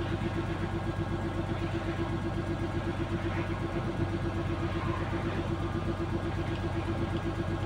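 Hitachi excavator's diesel engine idling steadily, with a fast, even throb.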